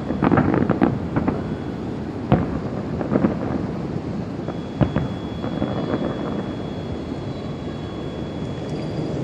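Aerial firework shells bursting: a quick run of bangs in the first second, then single bangs about two, three and five seconds in, over a steady background hiss and rumble.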